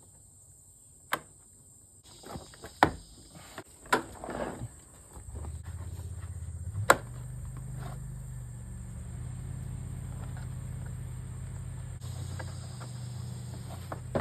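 A few sharp clicks and knocks, the loudest about seven seconds in, like parts being handled and fitted on an ATV. From about five seconds in a steady low motor hum runs underneath.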